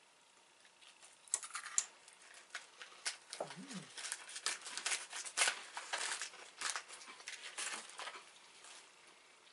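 Small, crisp vegetable crackers being crunched while eaten: irregular sharp crunches, close to the microphone.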